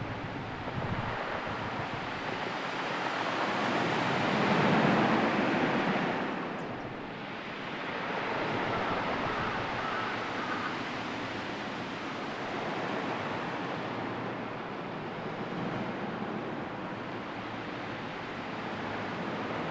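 Sea surf washing ashore as a steady rushing wash, swelling loudest about four to six seconds in and again a few seconds later.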